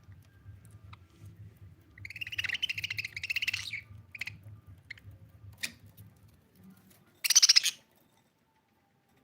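Budgerigar chirping: a chattering warble lasting nearly two seconds, then a few short chirps, then one loud harsh squawk near the end.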